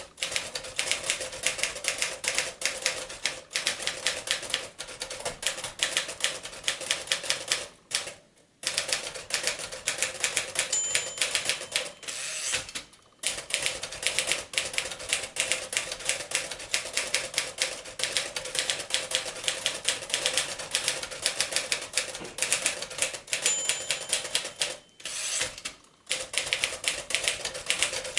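1939 Royal Arrow manual typewriter typing steadily, its typebars striking in quick runs of clicks. Twice a short ring sounds, the margin bell at the end of a line, followed by the carriage being returned and a brief pause.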